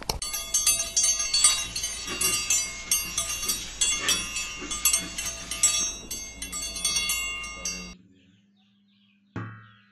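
A flat metal scraper is dragged in repeated strokes across the face of an old rusty metal frying pan, making a harsh scraping with a metallic ringing from the pan. The scraping stops abruptly about eight seconds in.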